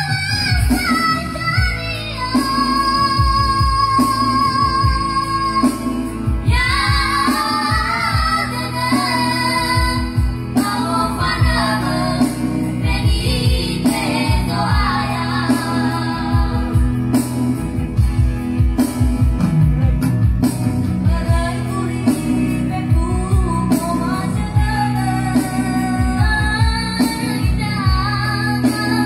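A trio of children singing into microphones, holding long, high notes that waver in pitch, over an instrumental accompaniment with a steady beat.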